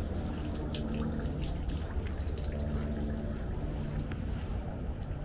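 Water dripping and trickling, with scattered small clicks, over a steady low hum.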